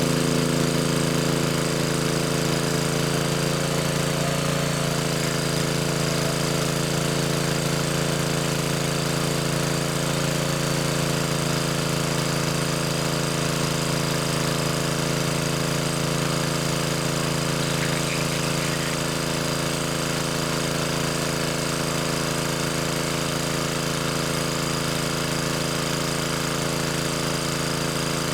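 A small engine running steadily at an even speed, with a brief dip in pitch about four seconds in.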